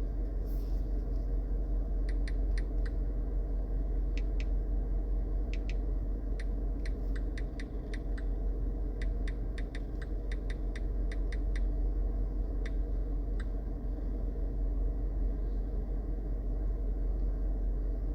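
Light, irregular typing clicks in short runs, fading out after about two-thirds of the way through, over a steady low hum.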